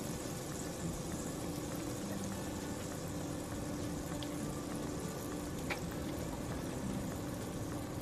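Lamb burgers sizzling in a frying pan, a steady hiss with a faint low hum under it and a couple of small clicks.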